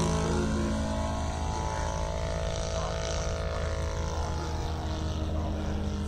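Three-cylinder four-stroke Saito 84 R3 radial engine of a large radio-controlled Hawker Sea Fury model, running steadily in flight and driving a 25x12 propeller. It grows a little fainter in the first second.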